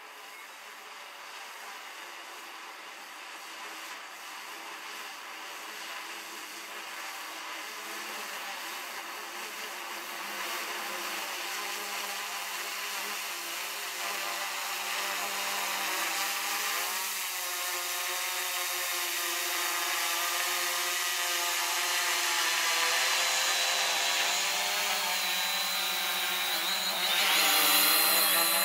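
Hubsan Zino quadcopter's propellers buzzing as it descends to land on return-to-home, growing steadily louder as it comes closer. The pitch shifts about halfway through, and there is a louder rush of noise near the end as it nears the ground.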